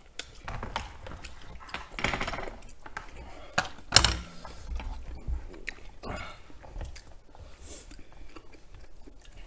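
Eating sounds: wooden chopsticks and a spoon clicking and scraping against a plastic takeout container as creamy noodles are picked up, with chewing. The sounds come as scattered sharp clicks, the loudest about four seconds in.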